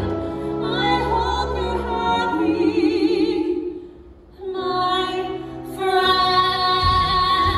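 Musical-theatre singing by a female voice with vibrato over instrumental accompaniment, the sustained sung phrases breaking off for a moment about four seconds in before the singing resumes.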